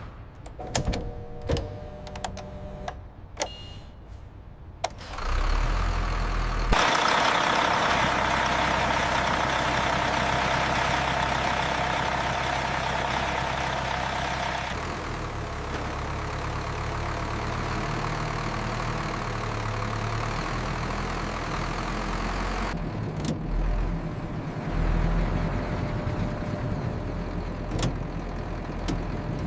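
A large engine of heavy machinery running steadily. Loud, even rushing noise sits over it for several seconds, from about seven to fifteen seconds in. A few sharp clicks and knocks come before the engine starts, about five seconds in.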